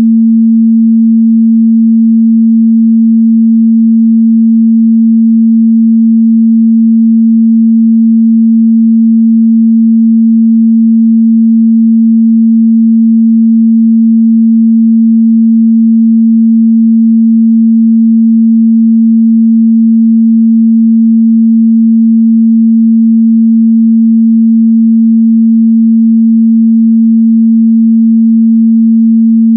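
A pure 226 Hz sine-wave test tone, held steady and loud at one pitch without a break.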